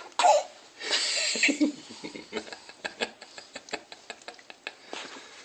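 A short voice sound falling in pitch, then a puff of breath blown out for about half a second, a woman blowing into a baby's face. A run of quick, soft clicks and catches follows, a few each second.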